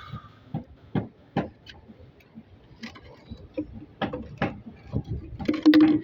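Irregular sharp clicks and knocks, about a dozen, coming faster and louder in the last two seconds, with a brief low pitched squeak-like tone near the end.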